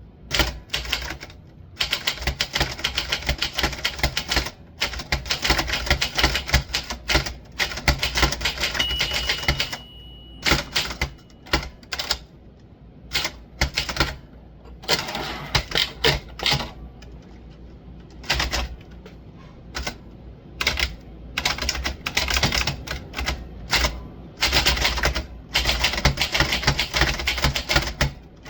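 Typewriter being typed on: rapid runs of keystrokes broken by short pauses.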